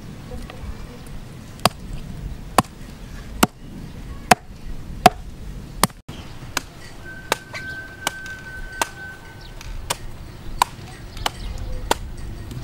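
A knife chopping into a bunch of palmyra (sugar palm) fruits: sharp chops at an uneven pace of roughly one every 0.7 seconds, some much louder than others.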